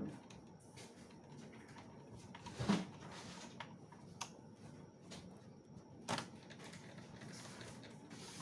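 A few scattered clicks and knocks from handling laptop parts and tools: the loudest about a third of the way in, another about three quarters of the way through.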